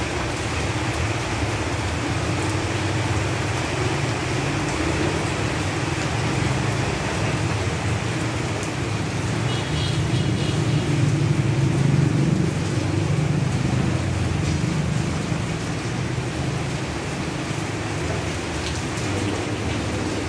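Steady rain falling on leaves, a dense even hiss with individual drops ticking through it. A low rumble swells up around the middle and fades again.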